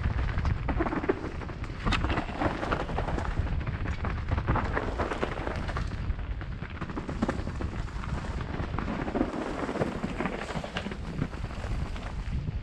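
Mountain bikes riding downhill on a dry-leaf-covered dirt trail: a steady wind rumble on the microphone with tyres crackling through the leaves and the bike rattling and knocking over bumps.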